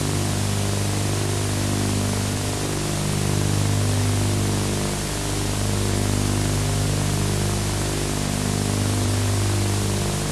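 Steady hiss with a low electrical hum and its overtones, typical of the soundtrack of an old videotape.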